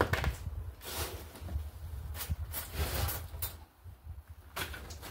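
Rustling and handling noises in a string of short, uneven bursts as a resin cartridge is picked up, over a steady low rumble.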